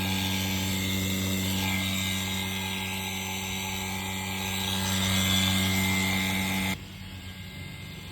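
An electric power tool's motor running at a steady pitch, then cutting off abruptly about seven seconds in.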